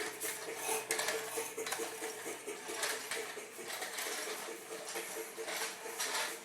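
Battery-powered Thomas toy train running across the floor: its small motor gives a steady whir under a continuous light plastic clatter and clicking.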